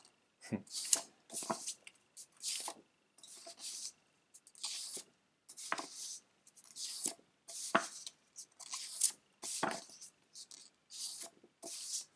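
Large printed paper art prints leafed through by hand: a quick series of short papery rustles and slides as each sheet is moved across the next, a few with a soft thud.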